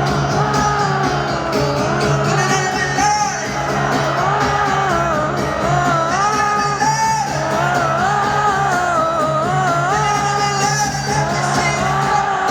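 Music: a song with a singing voice carrying a wavering melody over a steady low backing.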